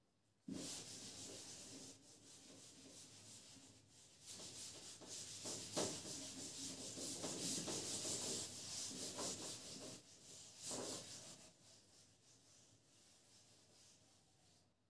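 Faint continuous rubbing of a board being wiped with an eraser, swelling in the middle and dying away about eleven seconds in.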